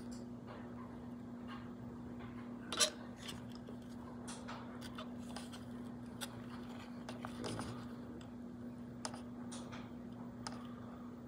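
Soldering iron and copper desoldering wick working on a circuit board's solder joint: faint scattered clicks and scrapes, one sharper click about three seconds in, over a steady low hum.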